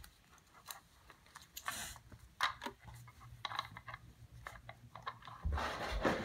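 Scattered light clicks and taps of small plastic toy figures being handled, with a rustling haze starting near the end.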